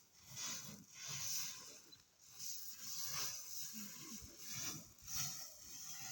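Dry shelled maize kernels being spread out by hand to dry, rattling and shushing in repeated swells a little over once a second.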